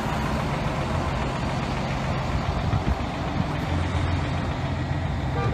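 Heavy vehicle engines idling in stopped highway traffic: a steady low drone that grows stronger near the end.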